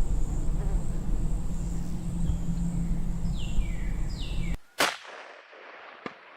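A single gunshot about three-quarters of the way in, a sharp crack with a long fading tail, followed by a fainter click. Before it there is steady outdoor wind-like rumble with a few faint falling chirps.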